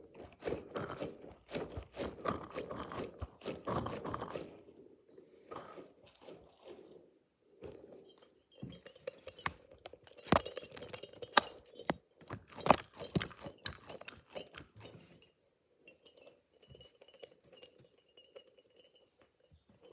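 Close-up ASMR handling of squishy and fidget toys: crackly crunching for the first few seconds, then after a pause a run of sharp taps and clicks, fading to faint handling near the end.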